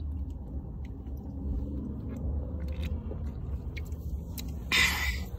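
Steady low road rumble inside a moving car, with faint small clicks and swallows of drinking from a seltzer can. A short, loud hiss comes about five seconds in.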